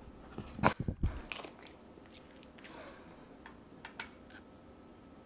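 Small dog picking a crunchy treat off a tabletop and crunching it: a quick run of sharp clicks and crunches in the first second and a half, then a few fainter clicks of chewing.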